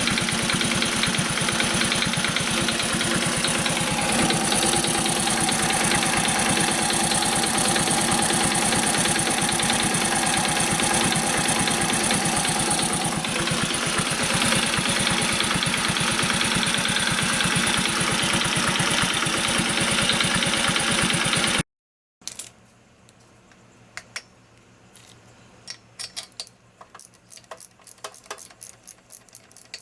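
Honda Super Cub 50 single-cylinder four-stroke engine idling warm, with the clicking (カチカチ) noise that shows once the engine has warmed up, which the owner sets out to cure by adjusting the tappets (valve clearance). About 22 seconds in, the engine sound stops and only faint scattered light clicks remain.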